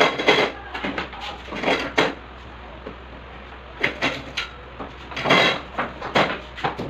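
Parts of a dismantled baby crib being handled and fitted together: a series of knocks and clatters, with a longer scraping rustle about five seconds in.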